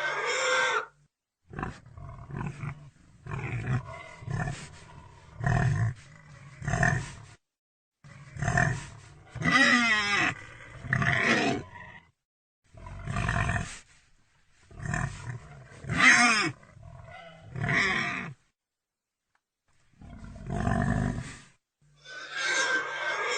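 A pig calling in a string of about a dozen separate short calls, each up to about a second and a half long, with silent gaps between. Some calls have a high, wavering pitch.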